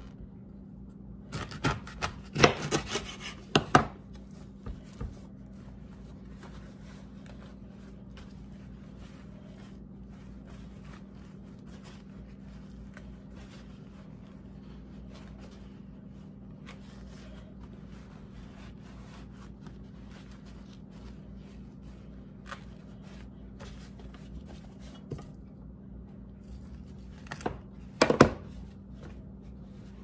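Chef's knife chopping through the base of a cooked corn cob onto a wooden cutting board: a cluster of sharp knocks about two seconds in. Faint rubbing and ticking of the husk being handled follows, with another short burst of knocks near the end, over a steady low hum.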